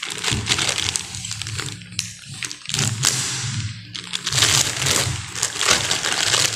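Clear plastic wrapping crinkling and rustling as it is handled and pulled off a rifle scope, in several bursts with short pauses about two and four seconds in.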